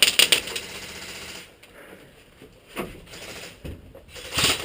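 Airsoft gun firing: a quick string of sharp shots at the start and another short burst near the end.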